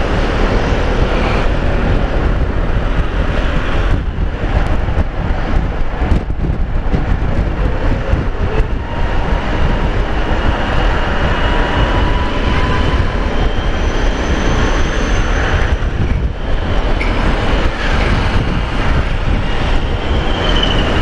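Wind rushing over the microphone, mixed with a Yamaha maxi-scooter's engine running while riding through traffic; a steady, loud rumble.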